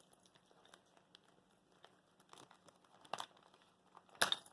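Packaging being handled, rustling and crinkling faintly in short scattered bits, with a louder crinkle about three seconds in and the loudest just before the end.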